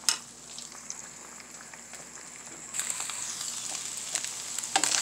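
Ham, onion and eggs frying in a pan: a steady sizzle with crackles that gets louder and busier about three seconds in. A sharp tap comes right at the start and another near the end.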